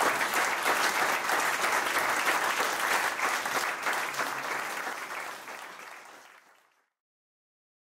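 Audience applauding, a dense clapping from many hands that fades out near the end.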